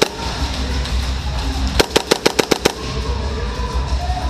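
Airsoft gun firing one rapid burst of about eight shots, about two seconds in, over background music with a steady beat.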